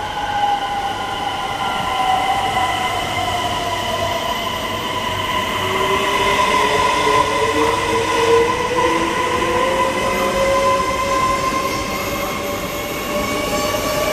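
SJ X3000 (Bombardier X55) electric train accelerating from a standstill, its traction inverters whining in several tones over the running noise of the cars. One tone falls in the first couple of seconds; from about halfway, the tones rise steadily in pitch as speed builds.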